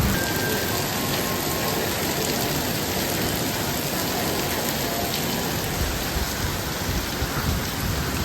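Steady heavy rain falling on hard surfaces, an even hiss.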